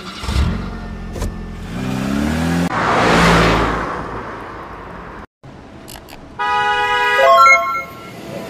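Deep engine rumble revving up in pitch, then a loud whoosh about three seconds in. A brief dropout follows, then a multi-tone bus horn plays a short stepped-pitch call near the end.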